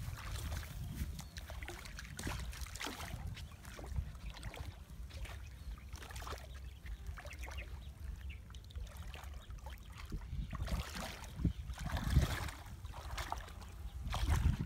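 Legs wading through shallow muddy water, with irregular sloshing and splashing steps and a few louder splashes near the end, over a steady low rumble.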